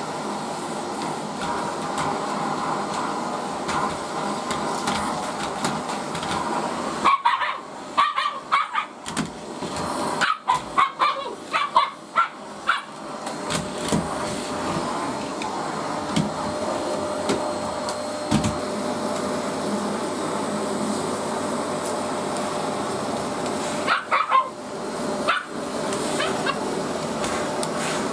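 Vacuum cleaner running steadily while a Siberian husky puppy barks and yips at it in two bouts: a string of barks about a quarter of the way in, and a few more near the end.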